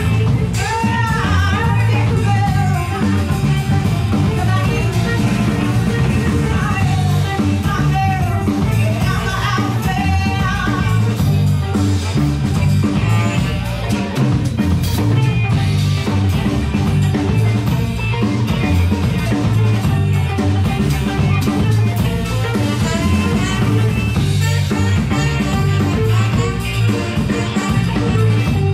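Live band playing an upbeat song: drum kit, electric guitar and saxophone, with sung vocals.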